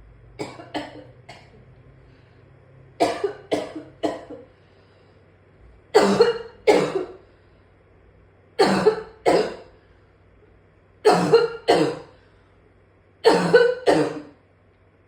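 A person in a hard coughing fit: harsh coughs in clusters of two or three, repeating about every two and a half seconds, the later clusters louder than the first.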